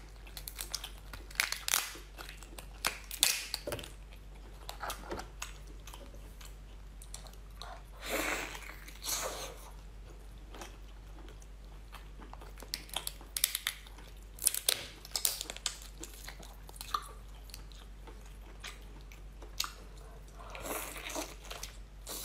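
Cooked lobster shell being cracked and pulled apart by hand, with sharp irregular snaps and crunches coming in clusters, along with close-up chewing and mouth sounds as the meat is eaten.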